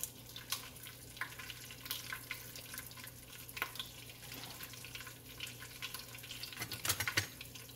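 Cumin seeds and broken dried red chillies sizzling and crackling in hot oil in a nonstick kadai, the tempering (baghar) stage. The crackles are scattered and thickest about seven seconds in, over a steady low hum.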